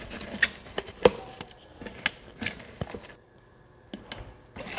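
A utensil stirring down chopped vegetables in a plastic food processor bowl: irregular clicks, taps and scrapes against the bowl, easing off about three seconds in, with one more tap near the end.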